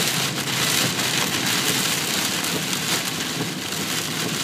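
Heavy rain beating on a moving car's roof and windshield, heard from inside the cabin as a steady dense hiss.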